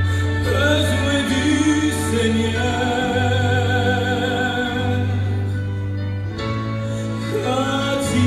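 Gospel singing: a man's solo voice holding long notes with vibrato into a microphone over sustained keyboard chords and a steady deep bass.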